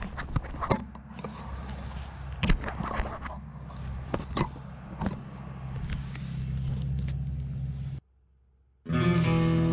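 Knocks and scrapes of an FPV quad with its GoPro being handled and set down, over a steady low hum. After about eight seconds it cuts to near silence, and electric guitar music starts near the end.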